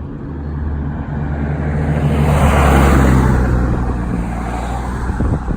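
Noisy truck passing on the road: its engine and tyre noise swell to a peak about halfway through, then ease off.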